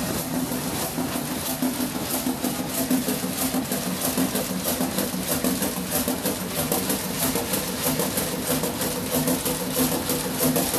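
Fairbanks Morse Model 3214E two-stroke diesel engine, rated 300 rpm, running steadily as it drives its generator. A steady hum sits under an even, rapid knocking beat.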